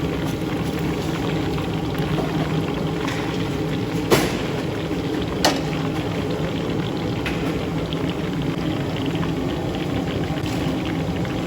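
Steady boiling of a large cooking pot, with two brief sharp clicks, about four and five and a half seconds in.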